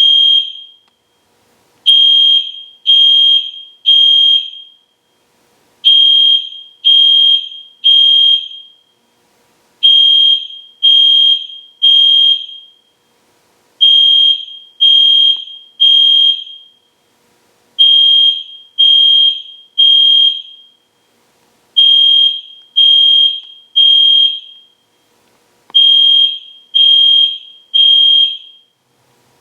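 EST Genesis fire alarm horn sounding a loud, high-pitched tone in groups of three beeps about a second apart, each group repeating every four seconds. This is the temporal-three evacuation pattern.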